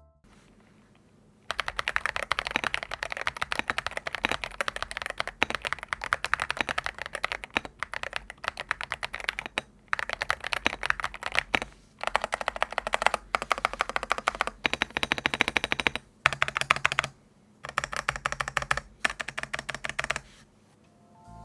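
Typing on an Epomaker RT100 mechanical keyboard fitted with factory-lubed Epomaker Flamingo linear switches: fast runs of keystrokes broken by short pauses, starting about a second and a half in and stopping near the end.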